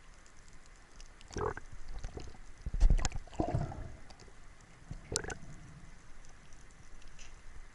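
Water sloshing and splashing while snorkeling, with short splashes at about one and a half and five seconds in and a cluster of knocks and thumps around three seconds in, the loudest point.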